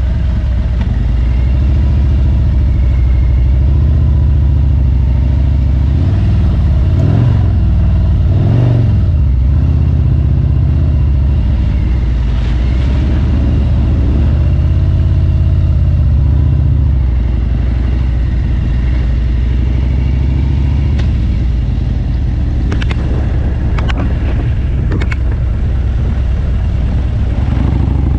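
Harley-Davidson Road King's V-twin engine running steadily while the bike is ridden, its note wavering up and down for a couple of seconds about a quarter of the way in. A few sharp knocks come near the end.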